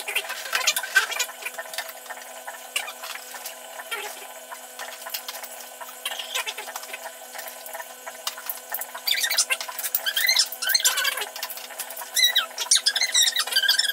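Large plastic building bricks clicking and knocking as they are handled and pressed onto a tall tower, with bursts of high squeaky chirping twice in the second half.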